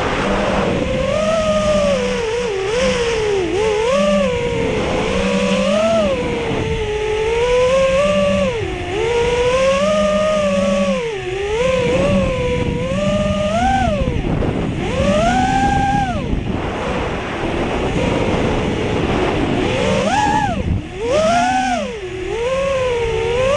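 FPV racing quadcopter's brushless 2205 2300KV motors and propellers whining, the pitch rising and falling constantly with throttle changes.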